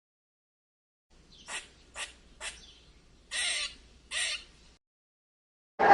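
An animal's harsh calls, five in all: three short ones about half a second apart, then two longer ones.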